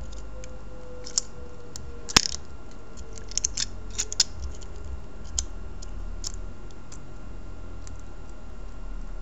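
Small, sharp clicks and taps of hand tools and small parts being fitted back into an opened iPhone during reassembly, scattered and irregular, the loudest about two seconds in, over a steady low hum.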